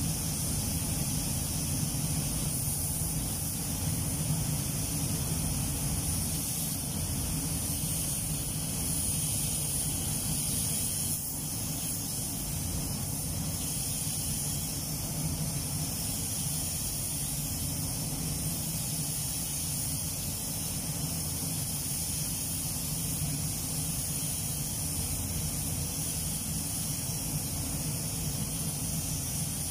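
Compressed-air paint spray gun hissing steadily as clear coat is sprayed onto a car body, over a steady low drone.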